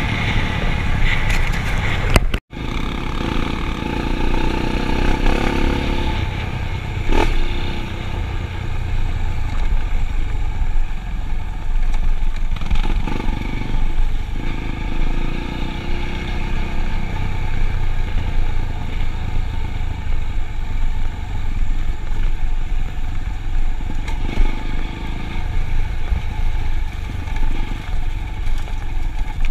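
Vehicle engine running steadily on the move, with clattering and scraping over rough ground. The sound cuts out for a moment about two and a half seconds in.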